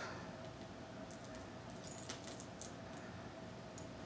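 Faint scattered clicks and rattles as a papillon puppy plays with his plastic e-collar cone, a small cluster of them about halfway through, over a faint steady hum.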